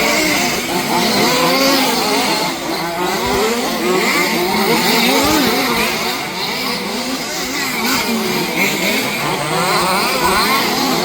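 Several 1/5-scale petrol two-stroke RC off-road cars racing together, their small engines revving up and down in many overlapping, rising and falling whines.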